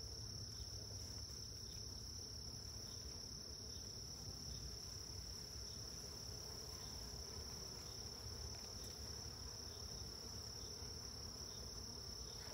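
Steady high-pitched trilling of night insects, a continuous chorus.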